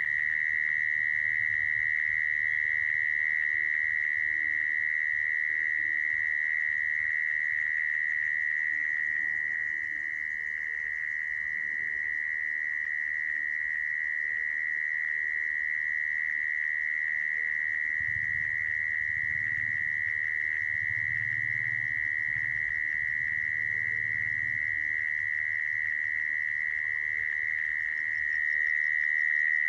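Mole cricket calling song: one continuous, unbroken high-pitched trill held at a steady level. This is the call used as a lure to trap mole crickets.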